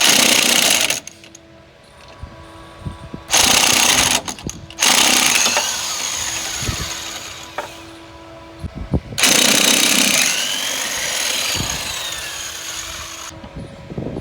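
Pneumatic impact wrench hammering in four bursts, the longer ones tapering off, as suspension bolts are worked loose.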